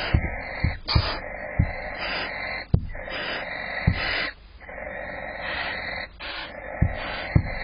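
Barn owls in a nest box: repeated hissing calls, each lasting about a second with short breaks between. Under them come sharp low thumps at irregular intervals, from the male owl stomping on the box floor.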